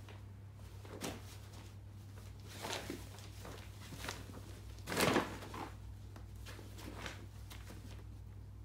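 The fabric of a photo softbox rustling and bumping as two kittens scramble and pounce in it: a string of short scuffles, the loudest about five seconds in, over a steady low hum.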